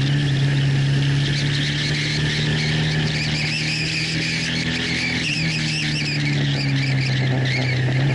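Motorcycle engine running at fairly steady high revs through a long corner, heard from a camera mounted on the bike, with wind rushing over the microphone.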